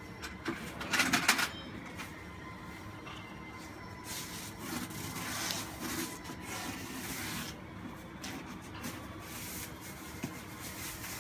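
Rubbing strokes of waterproof undercoat being spread by hand over a roof, in irregular passes, with a quick cluster of clacks about a second in.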